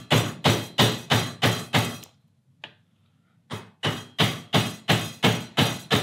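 A mallet striking the handle of a carving gouge in quick, steady blows, about three a second, with a short pause in the middle. The gouge is being driven through dry wood, roughing out the hollow of a ladle bowl.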